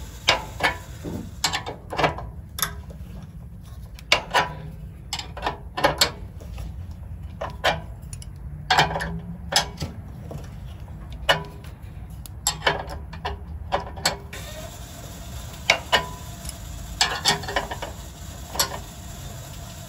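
Scissor jack being lowered slowly by turning its screw with a 3/4-inch combination wrench: a string of short, irregular metal clicks and clinks, with pauses between turns, over a low steady rumble.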